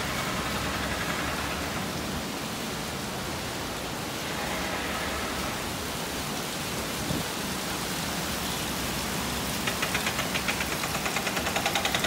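Steady hiss of falling rain. About ten seconds in, a fast rattling pulse starts and grows louder.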